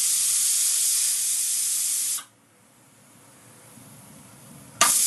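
Pressure cooker whistles: a loud hiss of escaping steam that cuts off about two seconds in, a quieter stretch, then a second loud hiss starting near the end.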